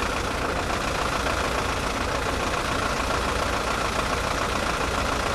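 A parked bus's engine idling steadily, a constant low hum under an even hiss.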